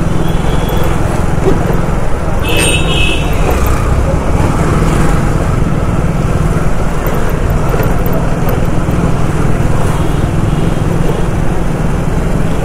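Steady running noise of a motorcycle ridden through city street traffic, with engine and road noise throughout. A brief high horn toot sounds about two and a half seconds in.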